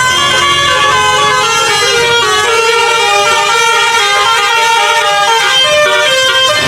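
A bus's Basuri 'telolet' musical horn playing a tune: loud horn notes stepping from pitch to pitch several times a second without a break.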